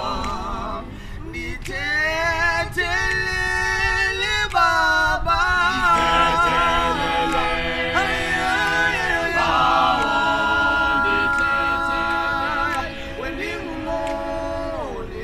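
A cappella vocal group singing in harmony without instruments, several voices together, with long held notes.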